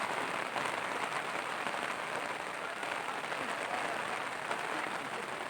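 Steady rain falling, a dense even hiss of drops.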